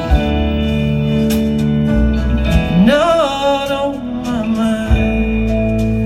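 Live band playing the closing bars of a slow folk-country ballad: acoustic guitar, keyboard and drums over a held chord, with a wavering note sliding up about halfway through.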